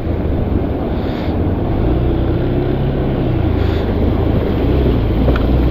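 Motorcycle engine running steadily at low revs while riding through a shallow, rocky stream crossing, over a continuous rush of wind and water.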